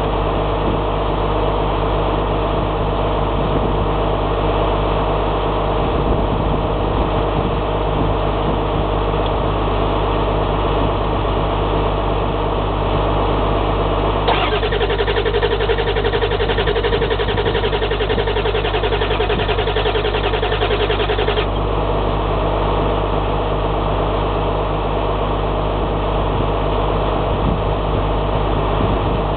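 7.3-litre diesel engine cranking on the starter for about seven seconds midway without catching: a no-start. A steady engine drone runs underneath throughout.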